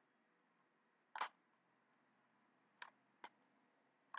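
A few faint computer mouse clicks in near silence: one about a second in, two close together near the end, and one more at the close.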